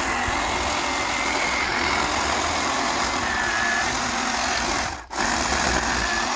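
Electric chainsaw motor running steadily, its whine wavering slightly in pitch. The sound cuts out for a moment about five seconds in.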